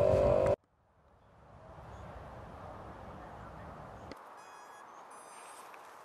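A steady hum cuts off abruptly about half a second in. After a moment of silence, faint steady outdoor background noise fades in, with a brief run of high-pitched tones around five seconds in.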